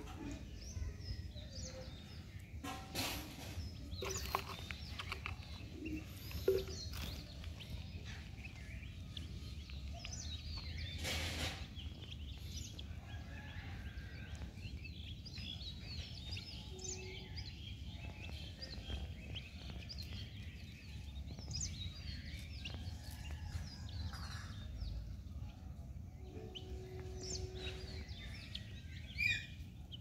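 Outdoor ambience: scattered small bird chirps over a steady low rumble, with a few short rustles.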